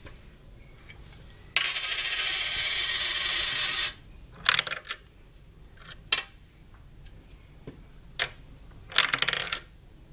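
Small coins dropped into a Lego gumball machine's coin slot, clinking against the plastic bricks as they fall through: they are too small to catch in the slot and are rejected. Several sharp clinks come after a loud, steady noise lasting about two seconds.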